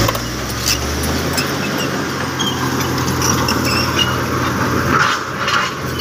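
Komatsu crawler bulldozer's diesel engine running steadily as it pushes rocky soil, with a few short knocks and clatters of rock.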